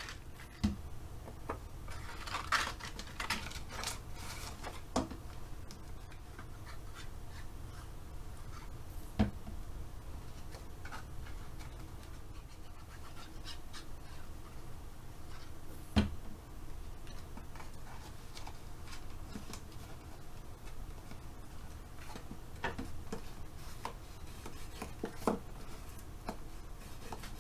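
Paper and cardstock being handled and pressed into place: intermittent rubbing and rustling with a few light taps, over a low steady hum.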